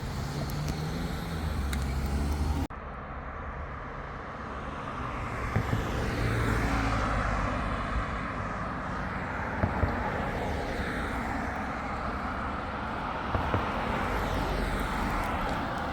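Road traffic: cars going past, a continuous rush of tyre and engine noise that swells and eases as vehicles pass. In the first few seconds a low engine hum is heard, and it stops abruptly about three seconds in.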